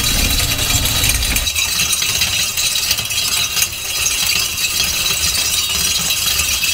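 Barbed wire being wound onto a hand-cranked Walters Fencing wire winder: a continuous metallic rattle and clatter as the wire runs through the guide ring onto the spool. A low rumble underneath stops about a second and a half in.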